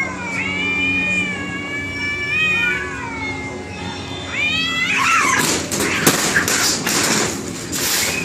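Cats caterwauling: long, drawn-out, wavering yowls that overlap. About five seconds in, they break into loud, harsh bursts of hissing and scuffling as the standoff turns into a fight.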